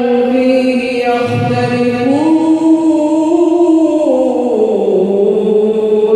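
A man's voice chanting Quran recitation in long, held melodic notes. The pitch steps up about two seconds in, then slides back down over the next couple of seconds.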